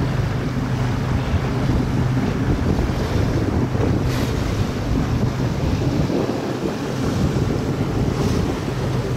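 Wind buffeting the microphone and water rushing along the hull of a motor yacht under way, over a steady low engine hum.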